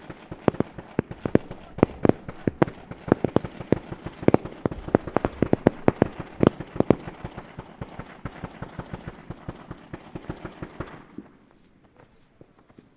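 Fireworks going off in quick succession: a dense run of sharp bangs and crackling pops, several a second, that grows weaker and stops about eleven seconds in.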